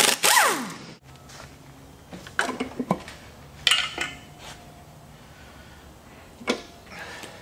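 A pneumatic wrench runs on the cylinder-head bolts of a Chevy 350 small-block V8 and winds down with a falling whine in the first second. After that come scattered metal clinks and clanks as a pry bar works on the bare cast-iron engine block.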